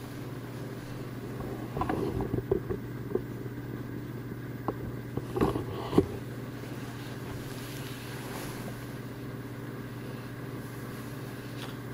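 Steady low indoor hum, like an air conditioner or appliance running, with a few scattered knocks and rustles between about two and six seconds in.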